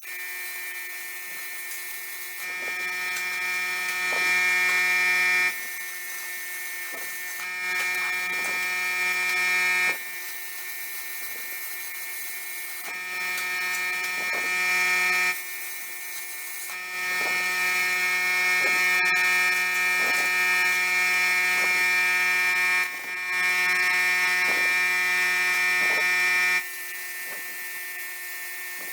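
An electric power tool running steadily, growing louder in five spells of a few seconds each as it is put to work.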